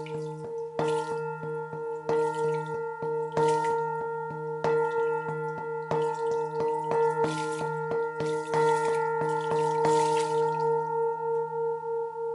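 Water-filled Tibetan singing bowl struck repeatedly with a mallet, about once every second and a quarter. Between strikes its hum rings on steadily with a pulsing waver. The strikes stop about ten seconds in and the bowl keeps ringing.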